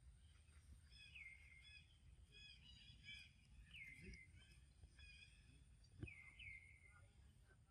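Faint outdoor quiet with birdsong: a bird repeats a short call that slides down in pitch, about four times, among a few higher chirps. A low rumble sits underneath, with a soft knock about six seconds in.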